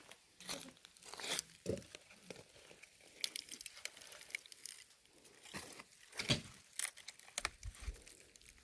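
Dry branches and firewood being handled and laid onto a bonfire pile: irregular dry rustling and light knocks.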